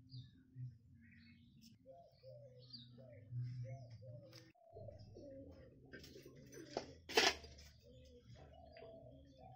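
A dove cooing in short repeated notes, about two a second, with small birds chirping higher up. A single sharp click about seven seconds in is the loudest sound.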